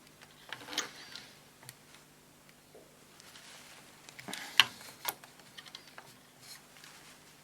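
Scattered small clicks and taps of hand work with tools and parts inside a power supply chassis, the sharpest click about four and a half seconds in, over a faint steady hum.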